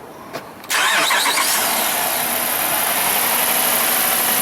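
2012 Jeep Grand Cherokee's 5.7-litre Hemi V8 starting suddenly under a second in, then running steadily, with its fuel pump fed straight from the battery by a jumper wire. Starting this way confirms a failed fuel pump relay inside the TIPM.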